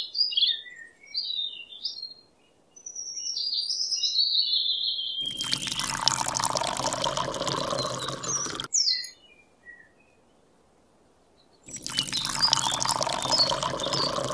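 Bird chirps over the first few seconds. Then water is poured from a small metal cup onto sand, splashing for about three seconds, and a similar pouring noise comes again near the end.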